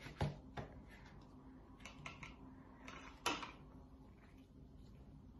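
Hand-kneading a soft yeast dough in a bowl: quiet rubbing and pressing sounds, with two sharp knocks against the bowl, one right at the start and one about three seconds in.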